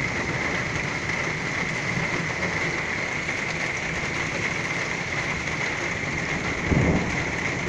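Torrential rain pouring steadily, a dense even hiss of downpour.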